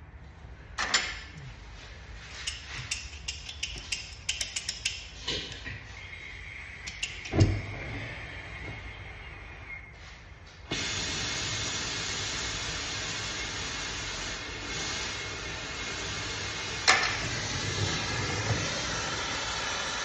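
Tools on a bent wheel rim in a repair shop: a run of metal clicks and knocks with one heavy thump, then a steady hiss that starts suddenly about halfway through and carries on, with one sharp knock near the end.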